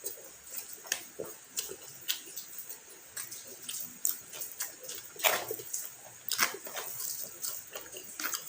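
Close-up eating sounds of a person eating fried fish and rice: irregular chewing and lip smacks, with a couple of louder smacks about five and six and a half seconds in.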